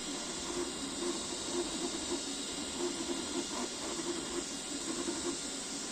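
Ender 3 V3 KE 3D printer running a print: its stepper motors whir in short tones that change pitch every fraction of a second, over the steady hiss of its cooling fans.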